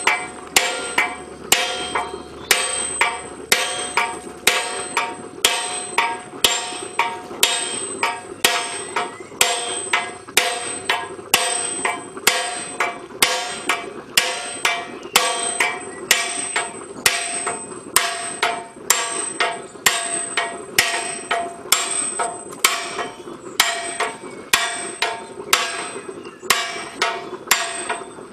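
A sledgehammer striking a handled set hammer held against the edge of a steel boiler ring, in steady blows about two a second, each with a clear metallic ring.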